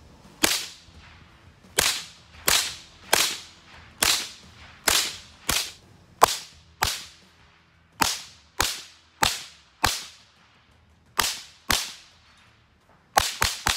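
GSG 522 .22LR semi-automatic rifle firing about seventeen single shots, spaced roughly half a second to a second apart. Each shot is a sharp crack with a short ringing tail, and a quick string of shots comes near the end.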